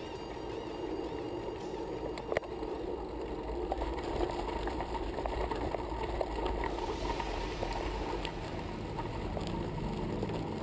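Road bicycle rolling, heard from a camera mounted on its handlebars: a steady rumble of tyres and wind, with one sharp knock about two seconds in. In the second half, scattered small clicks come from gravel under the tyres.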